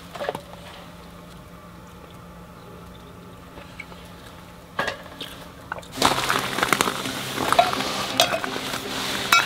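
A quiet low hum, then about six seconds in, clinks, scrapes and rattles of metal camping gear being handled: a stainless steel sierra cup set down on a steel-and-wood camp stand.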